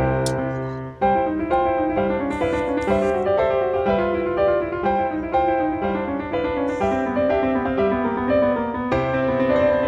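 Background piano music, a continuous run of notes that breaks off for an instant about a second in before carrying on.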